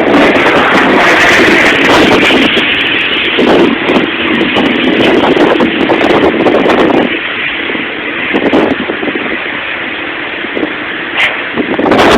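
Strong wind blowing across the camera microphone, a loud rushing that rises and eases in gusts and dies down a little past the middle before swelling again near the end.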